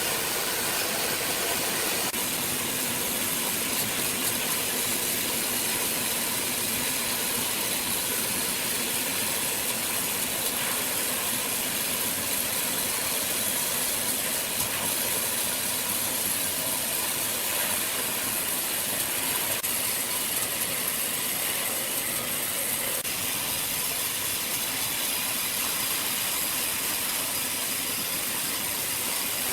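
Machinery running steadily: an even, unbroken noise with a few faint steady high tones.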